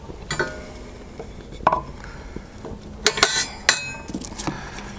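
Split wooden sticks being laid into the feed opening of a Petromax RF33 rocket stove, knocking and clinking against its stainless-steel feed shelf and fire chamber. There are several separate sharp knocks, the loudest a little after three seconds in.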